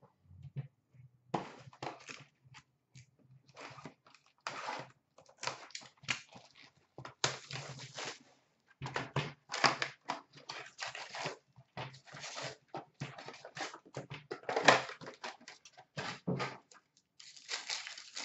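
Packaging of a 2018-19 Upper Deck SP Authentic hockey card box crinkling and tearing as the box is opened and its foil packs are pulled out and handled, with an irregular run of crackles and a few light thunks; the loudest crackle comes about two-thirds of the way through.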